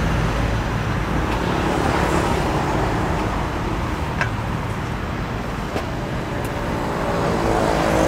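Steady road traffic noise, with a few light clinks between about four and six and a half seconds in.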